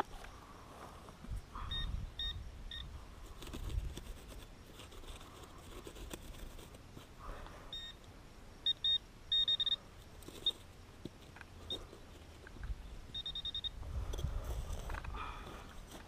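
Metal detector giving short, high-pitched beeps in small groups, the loudest run about nine seconds in, as it is swept over metal in the ground. There is low scuffing and rumbling from digging and handling between the beeps.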